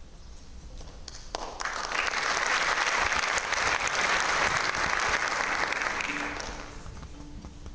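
Audience applauding, the clapping swelling about a second and a half in and fading near the end, with a faint steady tone near the end.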